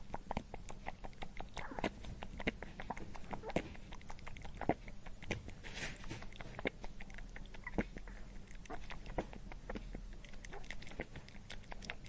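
Rabbit chewing grass: a dense, irregular run of small crunching clicks, several a second.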